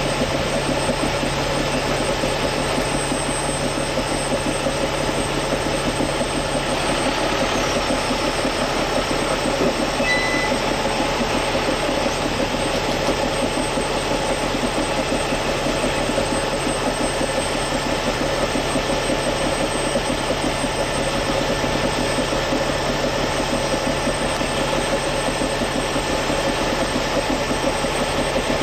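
A heavy diesel engine running steadily with a constant low hum.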